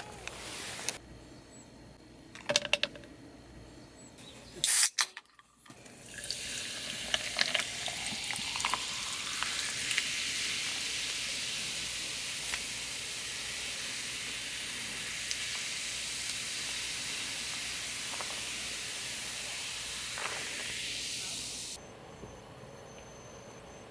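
Food frying in a hot pan: a steady sizzle with small crackles that builds up a few seconds in and cuts off abruptly near the end. It is preceded by a few clicks and knocks.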